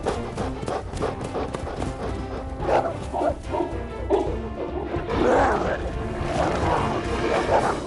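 Film soundtrack music with a pack of dogs barking, which gets louder and denser from about five seconds in as two dogs fight.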